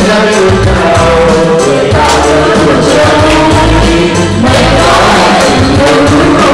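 Loud music: a song with singing over a steady, repeating bass beat.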